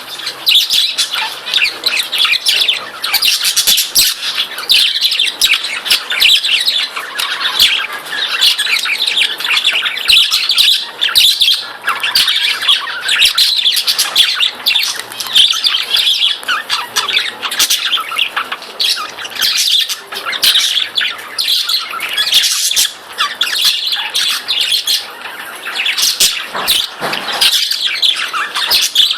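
Several budgerigars chattering continuously, a dense mix of rapid chirps, warbles and squawks.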